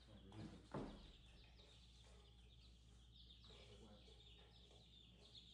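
Baby chicks peeping faintly and continuously, many short high downward chirps, with one soft knock about a second in.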